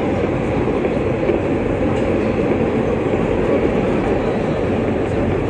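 An R160A subway train running between stations, heard from inside the car: a steady, loud rumble of wheels on rail.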